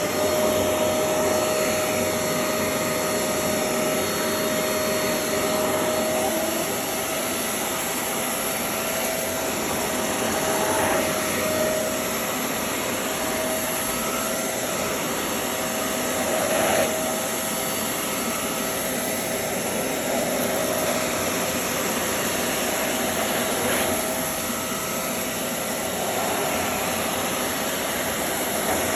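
Hoover Clean Slate portable carpet spot cleaner running, its suction motor giving a steady whine over a hiss of rushing air as it extracts a heavily soiled carpet.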